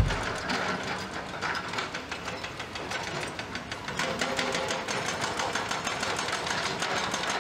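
Hydraulic excavators' diesel engines running, with a rapid, steady mechanical clatter.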